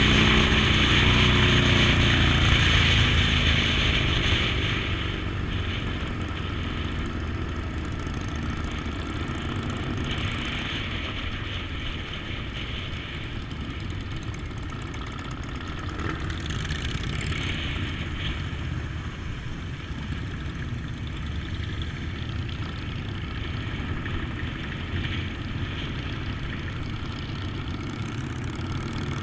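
Motorcycle engine running while riding, mixed with wind rushing over the microphone; louder for the first few seconds, then steady.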